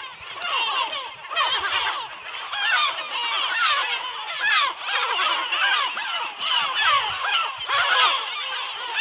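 A colony of gulls calling all at once: a dense, unbroken chorus of many short overlapping calls.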